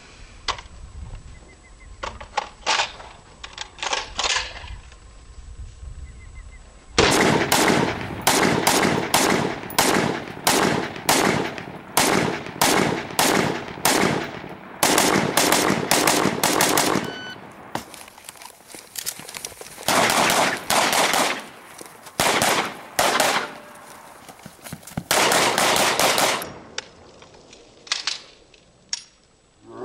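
Rapid semi-automatic fire from an AR-style rifle, in strings of shots about two a second broken by short pauses. There are a few fainter scattered shots in the first few seconds and again near the end.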